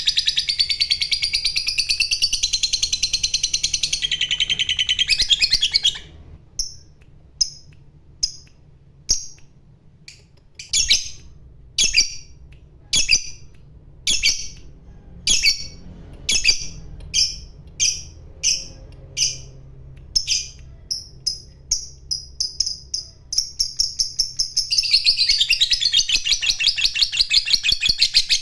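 Lovebird singing its ngekek, a long, rapid, high chattering trill. The trill breaks off after about six seconds into separate sharp chirps, roughly one to two a second, and the rapid chatter starts again near the end.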